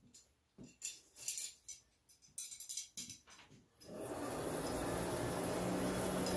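Light metallic clinks and jingles as a steel bar and tongs are handled at a coal forge. About four seconds in, a steady rush of air with a constant low hum starts, the forge blower running.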